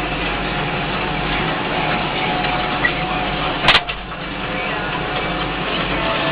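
Tractor engine running steadily while pulling a plough, with one sharp click a little after halfway.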